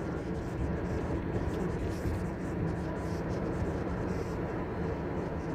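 Steady low rumble of a vehicle in motion, without pauses or sudden changes.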